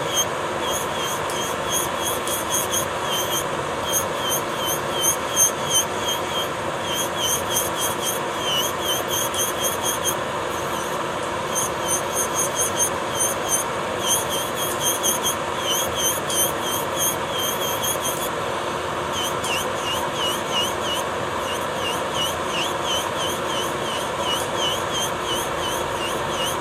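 Electric nail drill (e-file) running steadily with its bit grinding down a thick layer of gel polish on a fingernail. A constant whine carries a fast, regular scratching as the bit passes over the nail.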